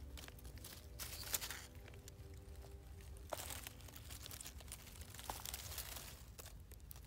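Dry fallen leaves rustling and crackling in three short spells as a hand digs around and pulls a black bolete (Boletus aereus) out of the leaf litter, over a low steady rumble.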